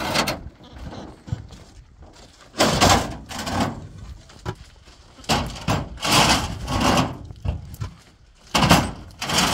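Hollow concrete blocks grating and knocking as they are slid across a pickup's metal tailgate and set down on a stack of blocks, in rough bursts every couple of seconds.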